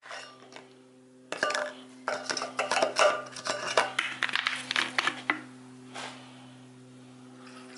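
A plastic funnel clatters and knocks as it is fitted into a scooter's fuel filler neck and a plastic bottle is handled: a quick run of clicks and knocks for about four seconds, then a single knock. A steady low hum runs underneath.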